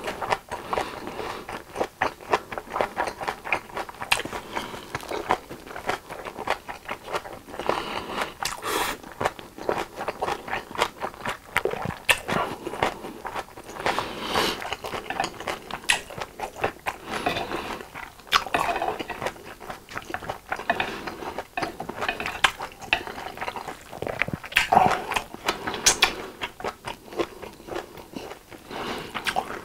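Close-miked chewing of a mouthful of japchae, soft glass noodles with vegetables and beef, with many small irregular mouth clicks throughout.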